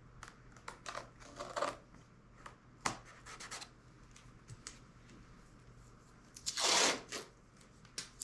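Light scratches and clicks of hands working over a balsa-and-foam wing repair, then near the end one louder rasping tear about half a second long: tape being pulled off its roll to lay the next tape line.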